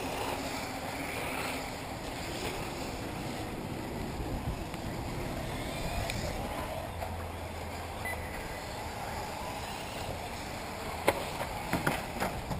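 Electric 1/8-scale RC off-road buggies running on the track as a steady rushing noise, with a few sharp knocks near the end.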